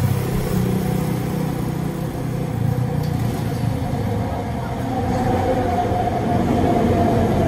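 Steady low hum of road traffic, with an elevated LRT train's electric whine rising and growing louder from about five seconds in as the train approaches along the viaduct.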